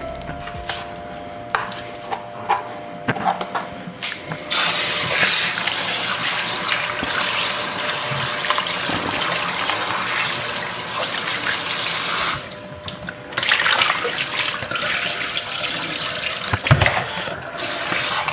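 Kitchen tap running into a sink while raw chicken pieces are washed under it. The water stops for about a second a little past halfway, then runs again. Before the water comes on there are a few light knocks and clicks.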